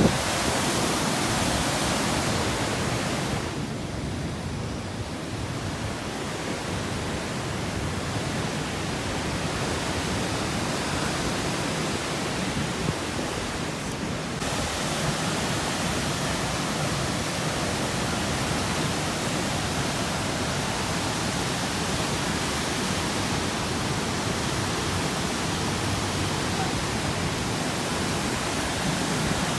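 Floodwater rushing steadily, a heavy outflow pouring from a storm drain. The hiss thins in its upper range from about four seconds in and comes back fuller about fourteen seconds in.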